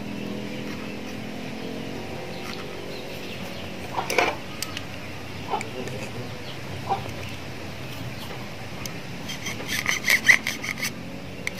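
Chickens clucking in the background, with a run of light, sharp metallic clicks and scrapes near the end from a steel tool worked against an aluminium motorcycle piston.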